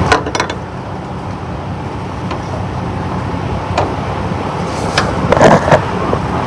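Truck engine idling steadily, with scattered knocks and clatters of a ratchet strap being pulled off a steel load, the loudest cluster about five and a half seconds in.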